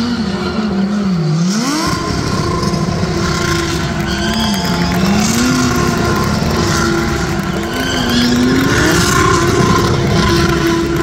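Several GT3 race cars' engines revving hard and wavering up and down against each other as they spin donuts and burnouts, over the steady hiss of spinning tyres.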